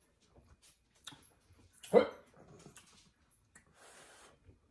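A single short dog bark about two seconds in, over faint clicks of eating and utensils.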